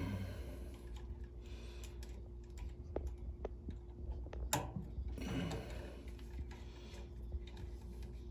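Wires being handled and their connectors pushed onto furnace control board terminals: scattered small clicks and rustles, with one sharper click about four and a half seconds in, over a steady low hum.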